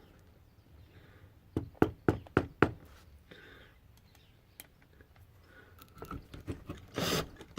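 Sharp knocks on a wooden workpiece, about five in quick succession, while it is assembled with pocket-hole screws, then a burst of clattering handling near the end.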